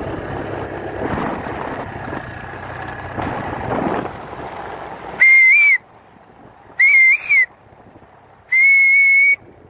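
Wind and road noise from a moving motorcycle, then three loud high-pitched whistle-like blasts in the second half, each lasting half a second to a second, the first two wavering slightly in pitch.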